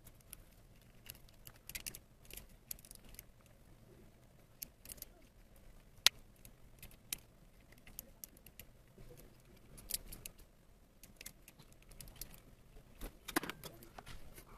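Hard plastic Marvel Legends War Machine action figure being worked by hand: scattered small clicks and taps of its parts and joints as a head is forced onto the neck peg, with one sharp click about six seconds in.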